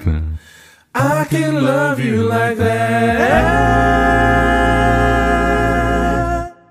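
Unaccompanied male voices singing a closing chord, the bass dropping to a low B-flat (Bb1) in subharmonic voice. The chord is held with the deep bass underneath from about three seconds in, then cuts off near the end.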